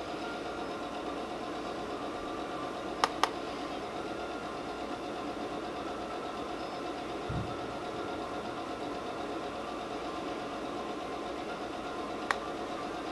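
Steady background hum and hiss with a few faint steady tones, like a fan or other machine running, broken by two sharp clicks in quick succession about three seconds in, a soft low thump midway and one more sharp click near the end.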